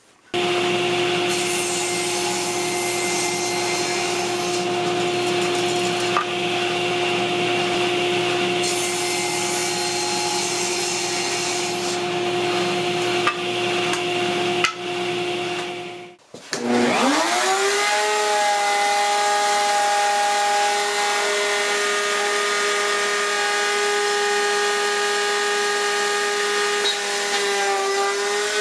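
A table saw running and cutting through a wooden board: a steady motor whine under rough cutting noise. After a short break about 16 seconds in, a table-mounted router spins up with a rising whine and then runs steadily at full speed.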